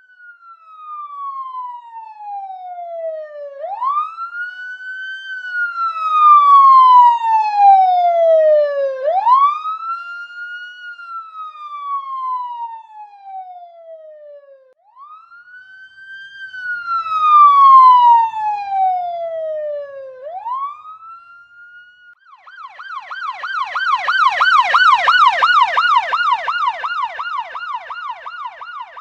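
Police siren sounding a slow wail, each cycle a quick rise and a long falling tone, then about 22 seconds in switching to a fast yelp of about three sweeps a second; the loudness swells and fades.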